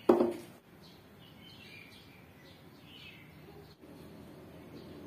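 A single sharp knock just after the start, dying away within half a second, then faint bird chirps: short falling chirps, singly or in pairs, every second or so.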